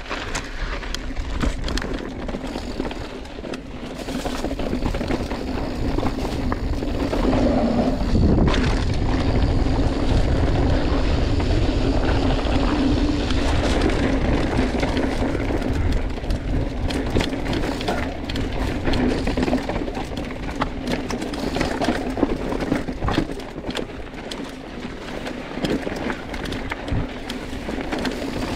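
An engine running steadily with a constant low hum, under a broad rushing noise such as wind or water.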